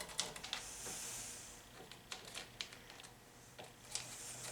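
Faint workshop handling: scattered light clicks and two brief scratchy swipes, a pen or pencil marking the bolt-hole positions for the bench vise on its wooden deck.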